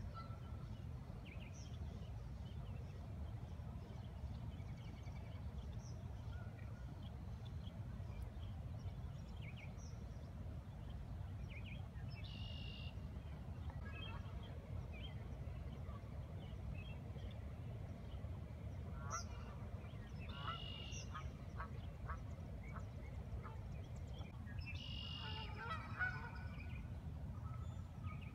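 Canada geese calling a few times, in clusters about twelve, twenty and twenty-five seconds in, over a steady low rumble.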